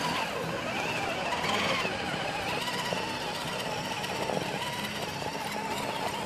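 Electric motor and gear drivetrain of a 1/10-scale RC rock crawler whining steadily as it crawls over rocks, the pitch wavering slightly with the throttle.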